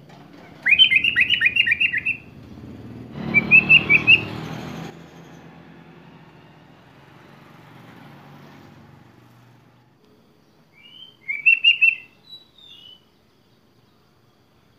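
Sooty-headed bulbul (kutilang) singing: three short, rapid chattering phrases, two close together in the first few seconds and a third about eleven seconds in. A brief rush of background noise runs under the second phrase.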